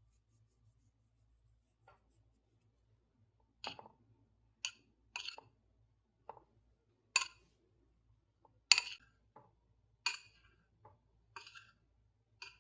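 An irregular series of about a dozen sharp clicks and clinks of hard objects being handled and set down, starting a few seconds in.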